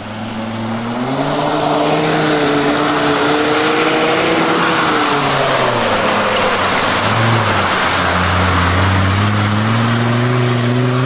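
Mercedes G-Class 300 GD's naturally aspirated three-litre diesel engine revving hard under load as it claws through an off-road obstacle. The revs climb over the first couple of seconds, sag about six seconds in, and rise again.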